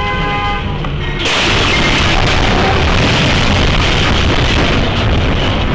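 A CSX locomotive's horn sounding a chord of several steady tones. About a second in it is cut off by the sudden loud crash of the train striking the bus, and continuous loud crashing noise follows as the locomotive pushes along the bus's side.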